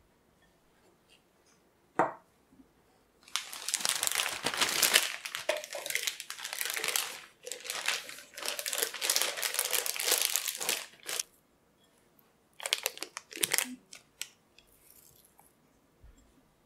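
Thin plastic piping bag crinkling as it is opened out and fitted into a plastic measuring jug, in long rustling stretches with a shorter burst near the end. A single sharp knock about two seconds in.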